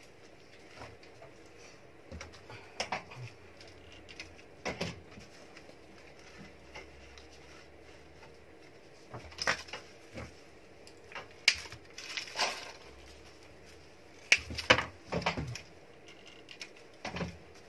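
Hands handling artificial roses in a cardboard gift box: scattered short taps, scrapes and rustles a few seconds apart, busiest in the last few seconds.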